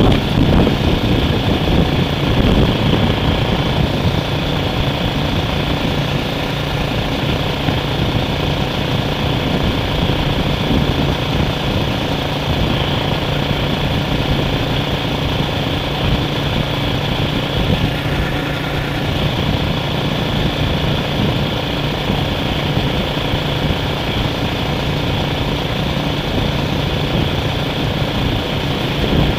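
A vehicle engine running at a steady pitch, a constant low hum over even mechanical noise.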